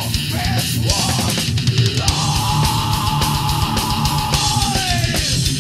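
Thrash/death metal band recording: fast drums and distorted guitars, with a long held note coming in about two seconds in and sagging in pitch near the end.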